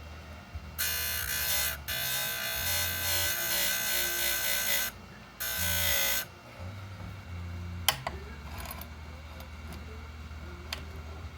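Oregon 410-120 bench chain grinder sharpening the cutters of a chainsaw chain: three loud, high-pitched grinding passes of about one, three and one second, over the steady hum of the grinder's motor. Two sharp clicks follow near the end.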